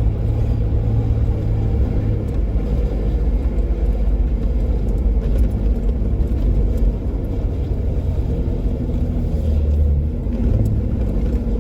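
Jeep Wrangler JK driving a dirt trail: the engine runs with a steady low rumble, easing off briefly about seven and ten seconds in.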